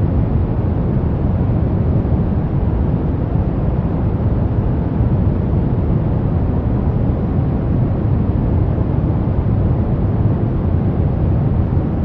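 Steady, loud low rumbling noise like wind, even and unchanging, with no tones or voices.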